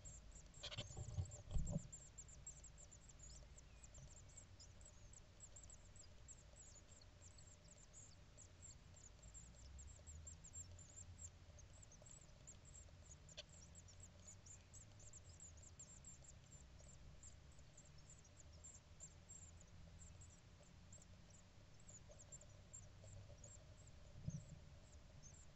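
Great tit nestlings giving faint, rapid, very high-pitched begging cheeps in a nest box as an adult feeds them, with knocks and scuffs of the adult moving in the box about a second in and again near the end. A faint steady hum underneath.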